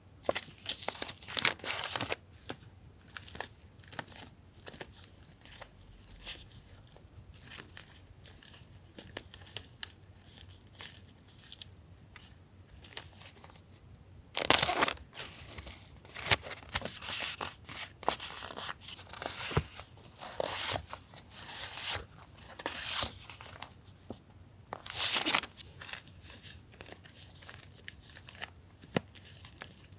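Sheets of stickers and journaling paper being handled and shuffled: rustling and crinkling in irregular bursts, with two louder sharp crinkles about halfway through and near the end.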